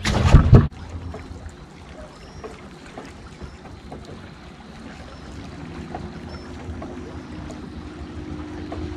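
A loud splash as a fish is released over the side of a bass boat. Then the steady low hum of the boat's electric trolling motor, with water lapping at the hull; the hum grows a little stronger about halfway through.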